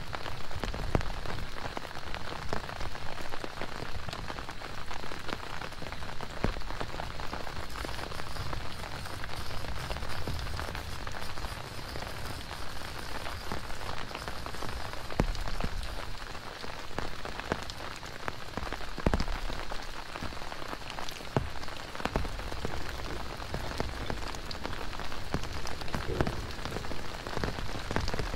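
Steady rain pattering on a surface, a dense haze of noise dotted with many small drop ticks.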